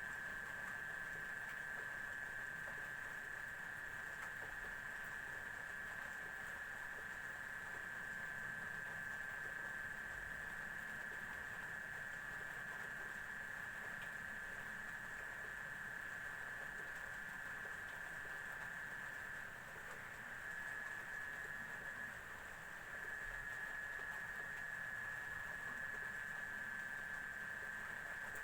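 A steady high-pitched whine held at one pitch throughout, fading briefly about twenty seconds in before returning.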